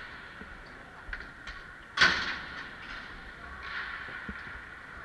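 A single hard bang against the ice rink's boards about two seconds in, ringing briefly in the arena, over a steady arena background.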